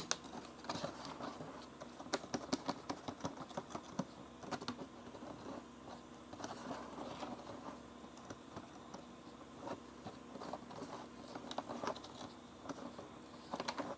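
Wide putty knife scraping and clicking as metal glaze body filler and hardener are mixed together: a faint, irregular run of small scrapes and taps.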